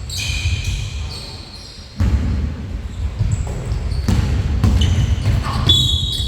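Basketballs bouncing on a gym court during a pickup game, irregular thuds with a low rumble of play underneath.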